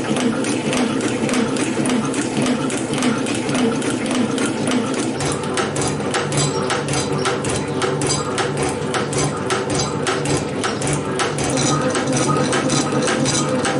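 Metal shaper running, its ram stroking back and forth as the cutting tool planes a metal workpiece: a steady machine hum with a regular clicking from the strokes.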